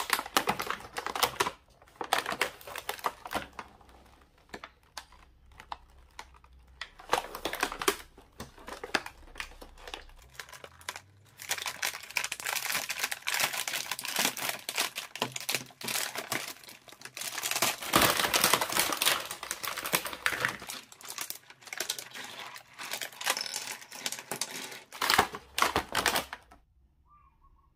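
Clear plastic blister packaging of a toy set being handled and pulled open by hand: irregular crinkling and crackling with taps and clicks, busiest in the middle stretch, falling quiet just before the end.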